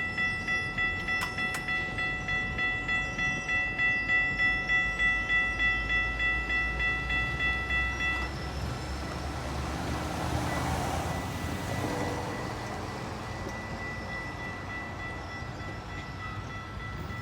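Electronic level-crossing bell ringing about twice a second, stopping about eight seconds in, over the low rumble of a GO Transit commuter train moving away. A swell of wheel and rail noise follows, then fades.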